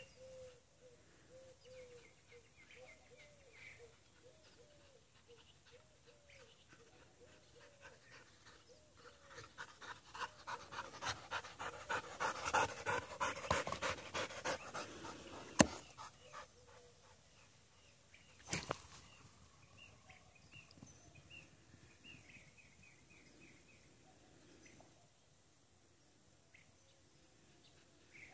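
Black Labrador retriever panting hard and fast close up: the panting builds about a third of the way in, is loudest around the middle, and fades soon after. A sharp click comes as it dies away. She is hot and tiring after a long run of fetch.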